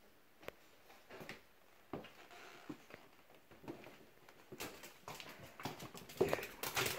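Faint scattered knocks and taps of footsteps and of a phone being handled while carried through a house, about one a second at first, busier and louder in the last couple of seconds.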